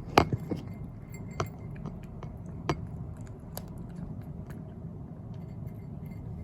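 An animal eating food it has just been given, with a few sharp clicks and clinks against its dish, the loudest right at the start and fainter ones scattered after.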